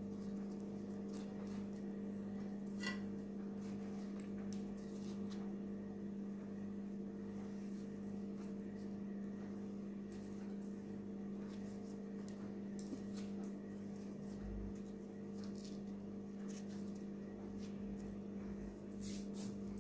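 A steady low hum from an appliance or motor runs throughout. Over it come a few faint taps and rustles as pita bread is handled and laid on a wooden chopping board.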